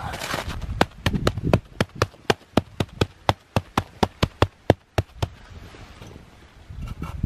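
A rustle of handling, then a quick, even run of sharp clicks, about four a second for some four seconds, that stops about five seconds in.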